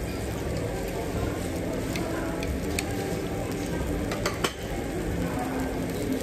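Steady sizzling of meat on a barbecue grill under a hum of restaurant noise, with a few light clinks of metal chopsticks and a plate, the sharpest about four and a half seconds in.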